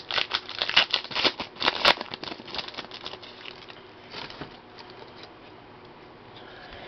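Trading cards being flipped and slid against one another in the hands: a quick run of soft clicks and rustles for the first couple of seconds, then fainter, scattered ones.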